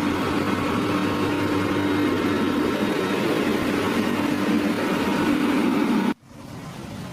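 Heavy construction machine's engine running steadily under load. It cuts off abruptly about six seconds in, and a quieter, even rushing noise follows.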